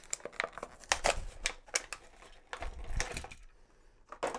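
Plastic blister packaging being handled and a small Tonka diecast cement mixer toy pulled out of it: a run of sharp plastic clicks and crinkles, with a few dull knocks.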